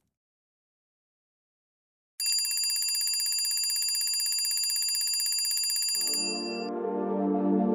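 Electronic wake-up alarm ringing with a fast trilling tone, starting about two seconds in and lasting about four seconds. Soft ambient music then comes in near the end.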